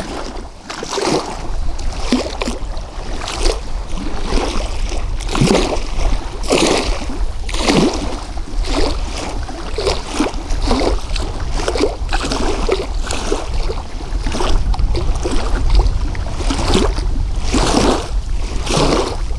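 Small waves lapping and splashing against the shore, a wash every second or so, over a steady rumble of wind on the microphone.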